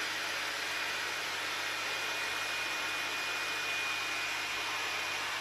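Leister Sonora S1 hot air hand tool blowing steadily, an even rushing hiss with a faint high whine running through it.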